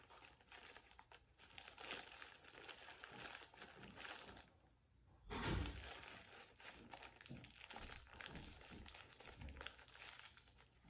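Plastic poly mailer crinkling and crackling as it is handled and pulled at to open it, with a short lull just before halfway and a soft low thump right after.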